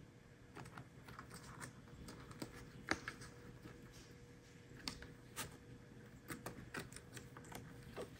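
Faint, irregular ticks and scratches of a kitten's claws and paws on a corrugated cardboard scratcher, a few clicks a second.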